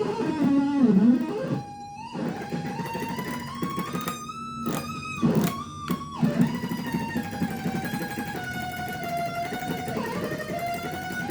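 Ibanez RG electric guitar played through a Zoom G3Xn multi-effects processor: a slow lead melody of long sustained notes that slide and bend in pitch, with a couple of short breaks between phrases.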